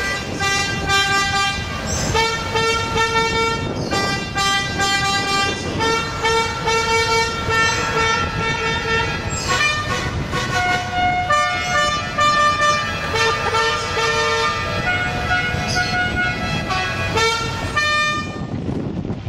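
A musical car horn playing a tune: a string of held notes, each with many overtones, stepping up and down in pitch every second or so, over the running noise of an open car on the road. The horn stops near the end.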